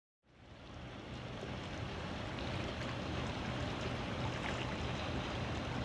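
Steady wind and water noise with a low rumble, fading in over the first second or two.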